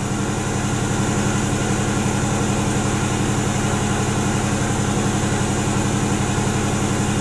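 Mercedes AMG 55 V8 engine running steadily in drive against the brakes, at an even speed. Its fuel trims show it over-fuelling under load.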